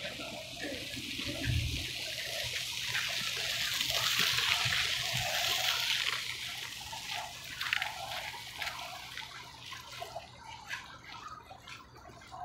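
Water sloshing and lapping at the shoreline: a rushing wash that swells to a peak midway and fades, then small splashes and drips near the end.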